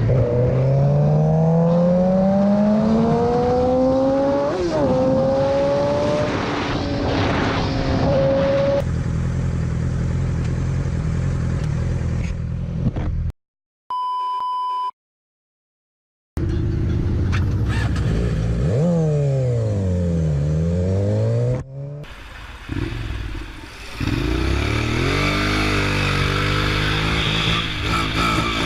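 Motorcycle engines revving and accelerating across several short clips: one climbs steadily in pitch for several seconds, and later one drops and rises again. About halfway through, a single steady beep lasting about a second sits between two short silences.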